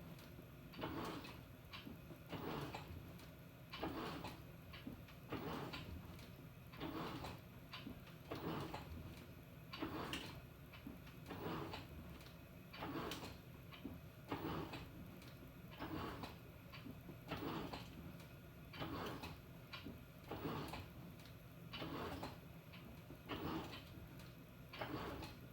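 Panasonic NA-FA100H9 top-loading washing machine's pulsator working in short, regular strokes, one about every second and a half, over the steady hum of the machine.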